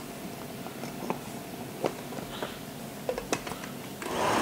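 A few light clicks and knocks as the lid is pressed onto a glass blender jar, then the Umco countertop blender's motor starts up near the end with a steady hum and a high whine, blending cooked squash for a purée.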